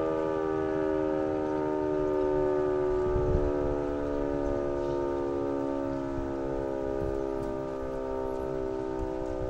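KIRKE 400 civil defence siren sounding a sustained multi-tone chord during a siren test, its pitch sinking slowly.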